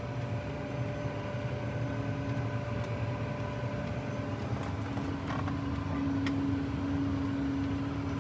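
Diesel engine idling steadily, a low drone with a constant hum over it that grows a little stronger about six seconds in.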